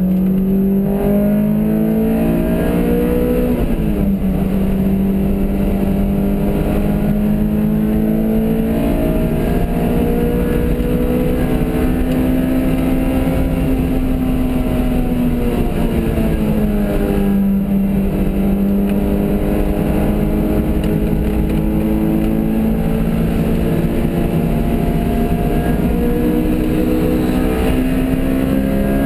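Car engine heard from inside the cabin while lapping a race track, its revs climbing under acceleration. A sharp drop in pitch about four seconds in, as at an upshift, and a slower fall past the middle, then the revs climb steadily again, with wind and road noise underneath.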